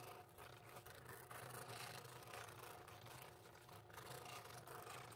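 Scroll saw running at its slowest speed, a fine No. 3 blade cutting slowly through acrylic sheet: a quiet, steady rasp over a low motor hum.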